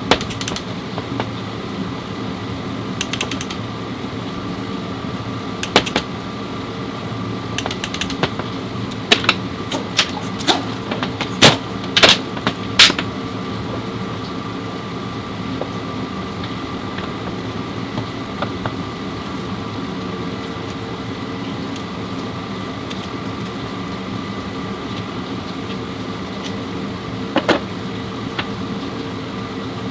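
A steady mechanical hum with a few sharp clicks and knocks, bunched together around the middle and one more near the end.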